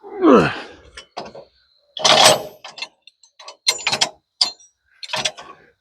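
Clanks, clicks and knocks of metal sawmill parts being handled and adjusted, with a short sound falling in pitch at the start and a loud clatter about two seconds in.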